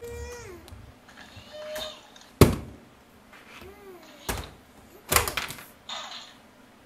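A one-year-old's short babbling sounds and little squeals, broken by three sharp knocks, the loudest about two and a half seconds in.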